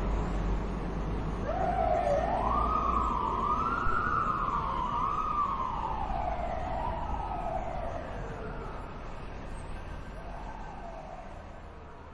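Fire truck siren giving a short burst: the wail rises, wavers up and down several times, then winds down in pitch and fades, with a fainter brief rise and fall near the end. A steady low engine rumble runs underneath.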